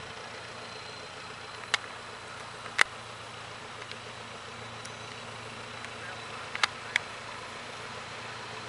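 Distant SM42 diesel shunting locomotive running as it pulls a passenger train away, a steady low engine hum under an even haze of noise. Four sharp clicks cut through it: one near two seconds in, a louder one about a second later, and a close pair near seven seconds.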